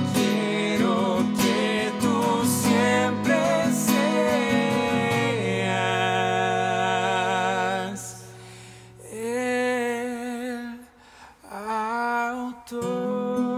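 Two men singing a Spanish-language worship song to a small acoustic guitar. The guitar is strummed at first; about halfway through the strumming stops and a chord rings out while the singing goes on more softly over picked notes.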